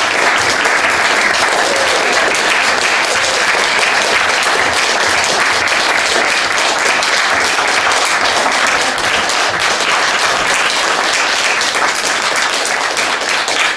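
A small group of people applauding, with steady, dense hand-clapping throughout.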